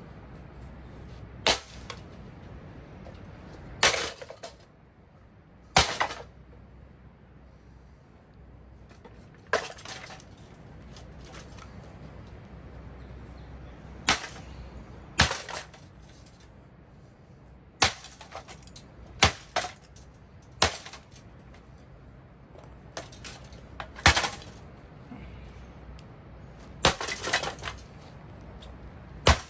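Casablanca Four Seasons ceiling fan being smashed: about a dozen hard strikes, irregularly spaced one to four seconds apart, some followed by a short rattle of breaking, clattering pieces.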